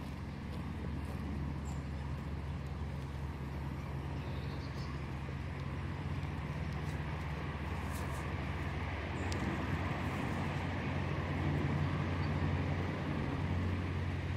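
Steady low outdoor rumble that grows slightly louder in the second half, with a few faint ticks near the middle.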